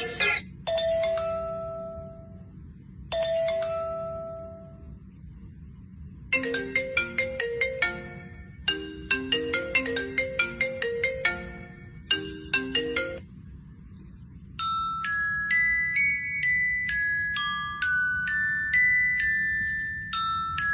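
Phone ringtone tunes. Two single held chime notes sound first, then a fast marimba-style ringtone melody in three bursts. After a short pause a higher tune of clean, stepped notes follows.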